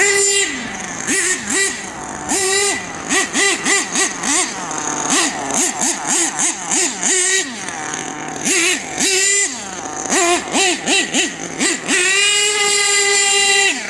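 Nitro glow engine of an HPI Savage X 4.6 RC monster truck revving in quick repeated throttle blips as it is driven, its pitch rising and falling with each one. Near the end it is held at a steady high pitch for about two seconds, then cuts off.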